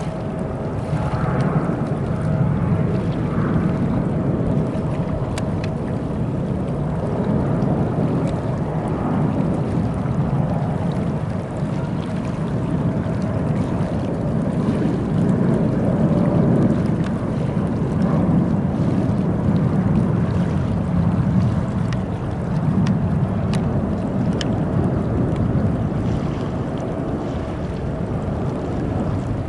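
Boeing 777's twin jet engines passing on final approach: a steady low rumble that swells and eases, with a faint steady whine above it.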